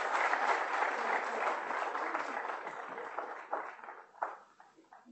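Audience applauding, strongest at first, then thinning out over the last second or so to a few scattered claps.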